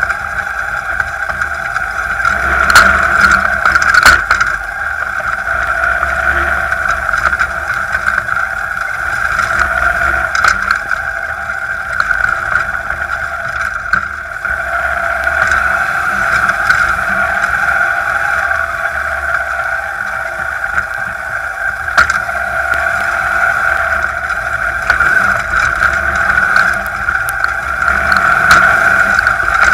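Air-cooled VW engine of a beach buggy running steadily while driving over rough dirt and grass, heard from on board, with a few short knocks from bumps in the ground.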